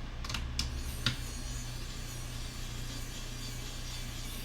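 A few light clicks and taps of small screws and laptop parts being handled, three in the first second or so, over a steady low hum.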